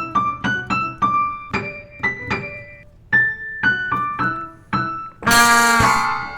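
Piano music from an early sound-cartoon soundtrack: separate struck notes, each dying away, two or three a second. About five seconds in, a louder, fuller chord cuts in.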